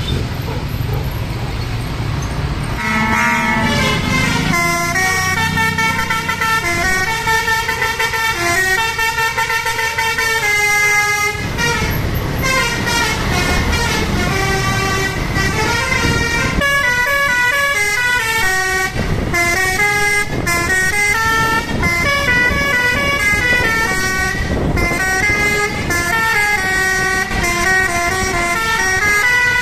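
Basuri musical air horn on a PO Haryanto bus playing a long, fast melody of stepping tones, which starts about three seconds in after a low rumble.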